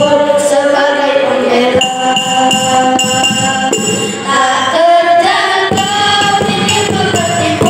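Boys' nasyid group singing into microphones, the voices holding long notes that step from one pitch to the next.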